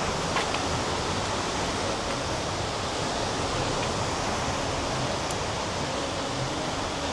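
Steady rushing noise of falling water: a waterfall's roar mixed with heavy rain.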